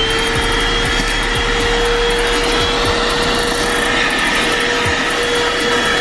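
THISWORX corded 12-volt handheld car vacuum running at full speed as it is worked over a fabric car seat. Its motor gives a steady high whine over the rush of air being sucked through the nozzle.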